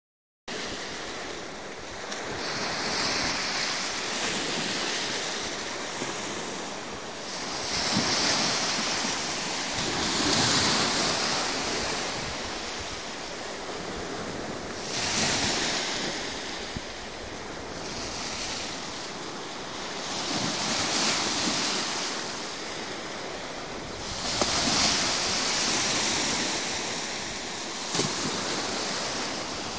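Small sea waves breaking and washing over a concrete ledge, the surf swelling and easing every few seconds, with a few sharp splashes against the concrete.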